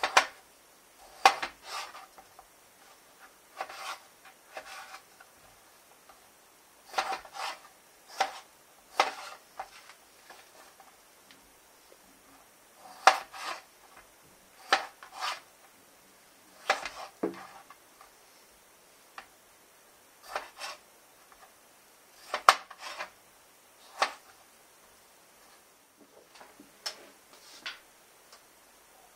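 Kitchen knife cutting a peeled potato on a plastic cutting board: irregular clusters of sharp knocks as the blade hits the board, with short pauses between.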